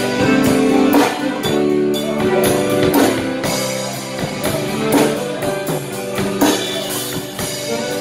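Live band playing an instrumental break between sung verses: acoustic guitar strumming with accordion and a drum kit keeping a steady beat.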